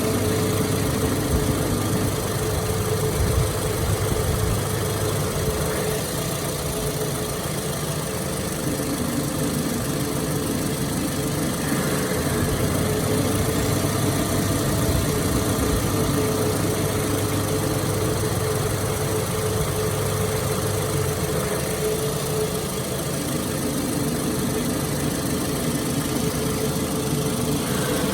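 Toyota 2AZ-FE 2.4-litre four-cylinder engine idling steadily, with a constant tone running through the engine noise.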